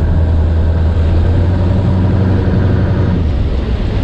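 A fishing boat's engine running steadily with the boat under way, its deep hum mixed with the rush of water along the hull.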